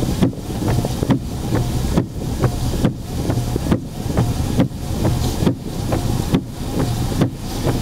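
Heavy rain drumming on a car's roof and windshield, heard from inside the car: a dense patter of drops over a low steady hum, the noise swelling and dipping a little more than once a second.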